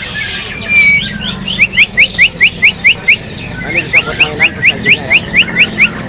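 Greater green leafbird (cucak ijo) singing: a short whistle, then two bouts of quick rising whistled notes, about five a second, with a brief pause between them. It is a cage bird in full song ('gacor').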